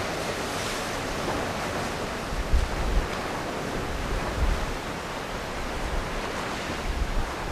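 Rough sea washing onto the shore, with gusts of wind buffeting the microphone a few times.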